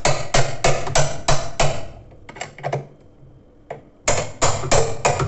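Hammer blows on a wrench tightening the washing machine basket's fixing nut: sharp metallic knocks about three a second, a pause of about two seconds in the middle, then the knocking resumes. The nut is being driven tight so it cannot work loose, a loose one leaving the machine unable to spin.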